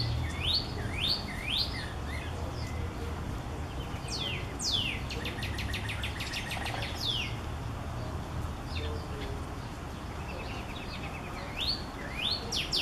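Female northern cardinal singing clear slurred whistles. A few rising notes open the song; about four and a half seconds in, a long downslurred whistle runs into a fast trill of short notes, and more rising whistles and a quick series come near the end. A steady low rumble runs underneath.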